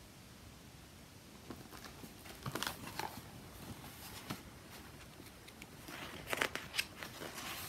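Hardcover picture book being handled and a page turned: faint paper rustles and clicks in two short clusters, about two and a half seconds in and again around six seconds in.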